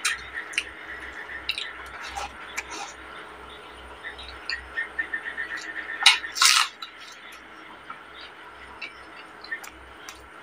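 Eating rice and chicken curry by hand: fingers mixing and squishing rice on a plate, and chewing with small wet clicks and smacks. A louder cluster of mouth sounds comes about six seconds in as a handful goes into the mouth.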